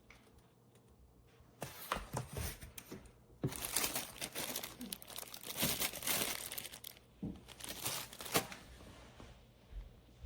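Crinkling and rustling of handled material, in three bursts of several seconds each, with a steady faint hum underneath.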